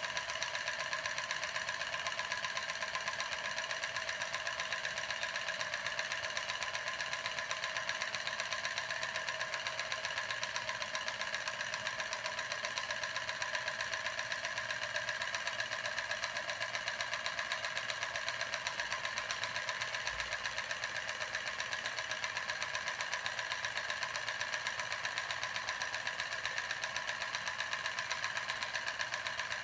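A homemade steam turbine running, a CD wheel driven by a steam jet from a candle-heated soda-can boiler. It makes a fast, even ticking rattle over a steady whine.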